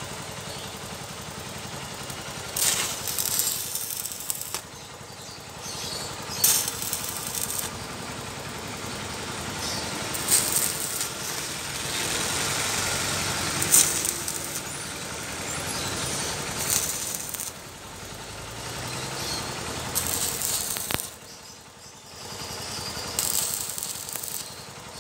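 Stick arc welding on the tube joints of a motorcycle sidecar frame. The arc crackles and sizzles in about six runs of one to a few seconds each, with short pauses between, like a series of tack welds.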